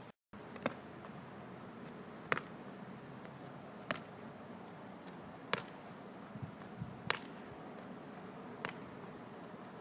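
An athlete's footfalls on an athletics track during slow hurdle drills, sharp steps about every one and a half seconds over a faint outdoor background, with a couple of softer low thuds about two-thirds of the way through.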